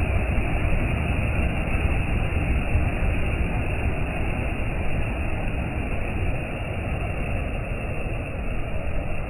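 Sea waves breaking and washing, a continuous rushing noise with a heavy low rumble, easing a little in the second half.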